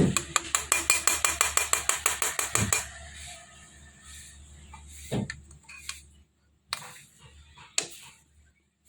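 Rapid, evenly spaced metallic clicking of a utensil against a cooking pan, about ten clicks a second for nearly three seconds, followed by a few separate light knocks.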